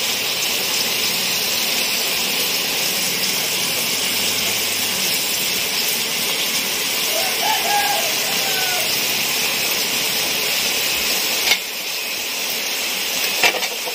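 Green chafer beetles frying in a wok, a steady sizzling hiss, with two sharp knocks near the end.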